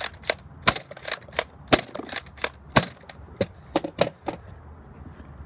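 Nerf Rebelle dart blaster being primed and fired over and over in quick succession: a run of sharp snapping clicks, two to three a second, that stops about four seconds in.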